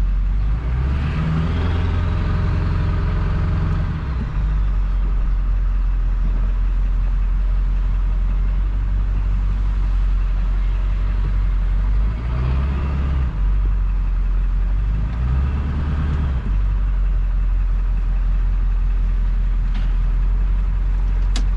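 Straight-piped, muffler-deleted 7.3 L Power Stroke V8 turbo diesel in a 2000 Ford F-350 running steadily under way, with three throttle surges: about a second in, around twelve seconds and around fifteen seconds. The first surge brings a rising turbo whistle.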